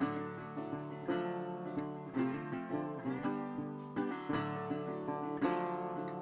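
Background music led by plucked and strummed acoustic guitar, with notes struck about once a second.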